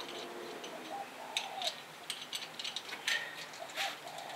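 Light metallic clicks and clinks from handling a hub-centric wheel spacer and loose wheel nuts, the loudest a couple of sharp clinks with a brief ring. A few short bird calls sound behind them.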